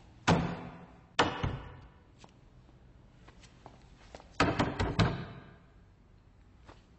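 Toilet cubicle doors being pushed and banged open, each bang ringing on in the tiled washroom: two single bangs in the first second or so, then a quick run of four or five bangs about four seconds in.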